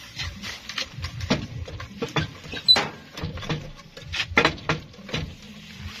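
Irregular clicks and knocks of hand tools working on the concrete mixer truck's clutch assembly, a dozen or so sharp strikes at uneven intervals.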